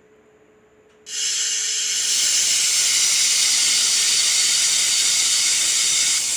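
Pressure cooker whistle going off: steam hisses out loudly and steadily, starting suddenly about a second in. It is the sign that the cooker has come up to pressure.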